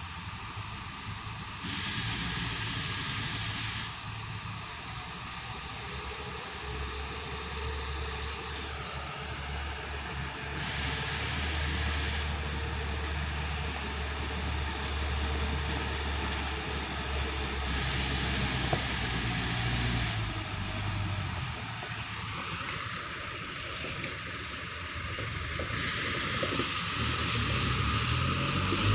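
Diesel engines of a motor grader and dump trucks running, a steady low hum that grows louder near the end as a truck comes close, with several blocks of high hiss lasting about two seconds each that start and stop sharply.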